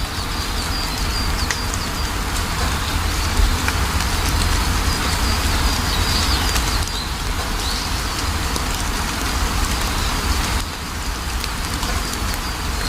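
Steady rain falling, with a strong low rumble under it, while a bird chirps in high wavering notes near the start and again about six seconds in.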